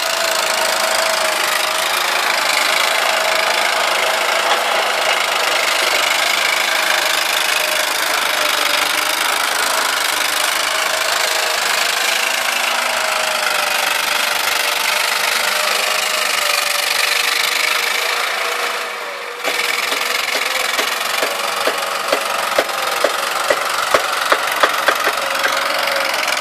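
Vermeer mini skid steer engine running steadily, its pitch wavering slightly as it works, with a brief drop in level about two thirds of the way in. Over the last few seconds a quick run of sharp clicks or knocks sounds over the engine.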